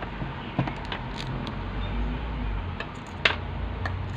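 Small steel screws clicking and clinking against a magnetized screwdriver and each other as they are picked up, with a sharper click about three seconds in, over a steady low hum.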